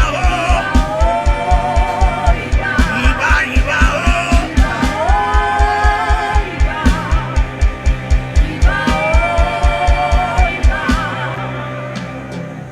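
Live gospel worship music: a fast, steady kick-drum beat under a held chord and a wavering melody line with heavy vibrato. The drum stops about eleven seconds in and the music fades away.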